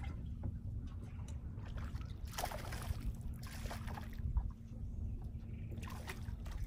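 Hooked crappie splashing and thrashing at the surface beside the boat as it is played in, a few short splashes over a low steady rumble with a faint steady hum.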